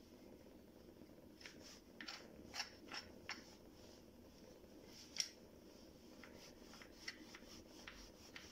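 Near silence: room hiss with faint scattered clicks and light taps, about a dozen over several seconds, the sharpest one about five seconds in.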